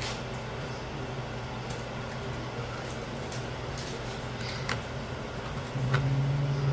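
A steady low machine hum with a few faint clicks, the hum growing louder near the end.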